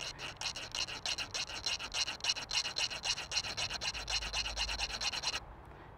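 A file scraping in rapid back-and-forth strokes across the freshly cut end of a bicycle cable housing, squaring it off flat and flush. The strokes stop a little before the end.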